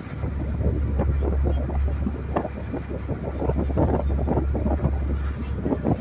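Motorboat under way on open sea: wind buffeting the microphone over a steady low rumble, with bow spray splashing and hissing along the hull.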